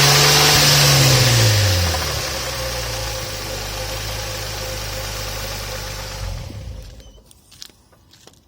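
Infiniti G35's 3.5-litre V6 running with a rod knock from a spun connecting-rod bearing on cylinder 2. The revs drop back about two seconds in, then the engine runs lower until it falls quiet near the end, leaving a few faint clicks.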